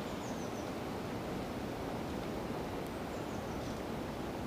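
Steady wind noise buffeting the microphone outdoors, with leaves rustling. Faint high bird chirps come twice, about a third of a second in and again around three seconds in.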